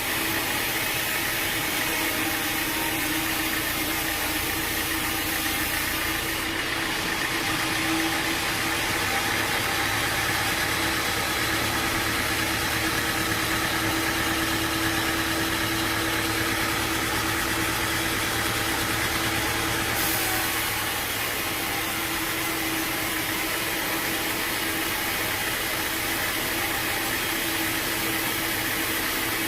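Sawmill machinery running steadily, a constant mechanical hum under a broad hiss.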